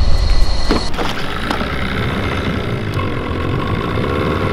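A vehicle running, a steady low rumble with noise above it; the sound changes abruptly about a second in.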